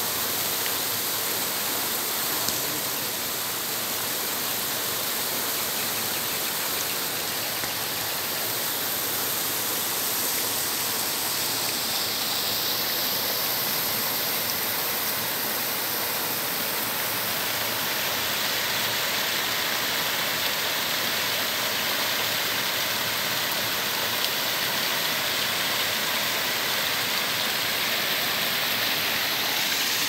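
Steady rush of flowing river water, an even hiss with no breaks.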